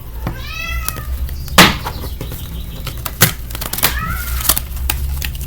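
A cat meowing: one drawn-out meow near the start and a shorter one about four seconds in. Several sharp knocks and clicks fall around them, the loudest about a second and a half in.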